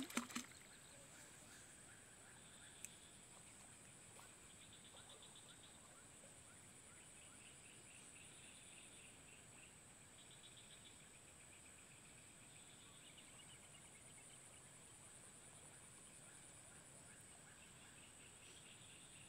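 Faint outdoor ambience: a steady high-pitched insect drone with short bouts of pulsed chirping calls every couple of seconds. A few soft clicks come right at the start.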